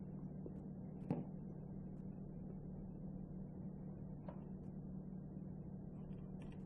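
Quiet room tone with a steady low hum, and one light knock about a second in, followed later by a couple of fainter clicks.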